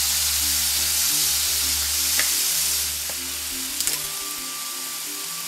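Apples and scallions sizzling in a frying pan in a soy, lime and ginger sauce, with a couple of light clicks of stirring. The sizzle eases a little about three seconds in. Background music plays underneath.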